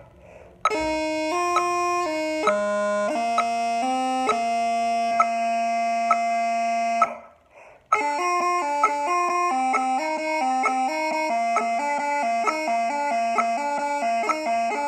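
Bagpipes playing a tune in harmony. It breaks off briefly at the start and again about halfway, then resumes with a quicker, ornamented melody.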